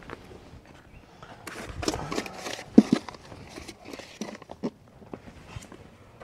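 Irregular knocks, clicks and rustling, busiest about two to three seconds in, with one sharp knock just before the three-second mark.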